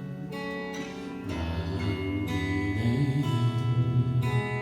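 Live worship music: an instrumental lead-in of strummed acoustic guitar chords with sustained held notes underneath, before the singing starts.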